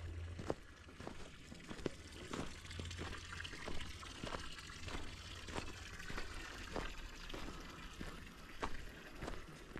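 Footsteps crunching on packed snow at a steady walking pace, a little under two steps a second.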